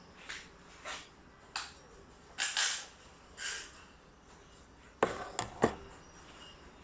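Airsoft rifle with a Rapex 3J spring and a 'Mouse Fart' quiet setup being worked and fired: a few light clicks and sliding sounds, then a cluster of three sharp cracks about five seconds in, the loudest part.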